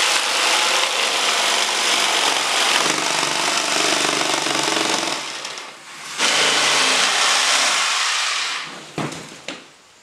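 Handheld power saw cutting through pink foam board, its blade buzzing steadily; it runs about five seconds, pauses briefly, runs again, and stops about eight and a half seconds in, followed by a few light knocks.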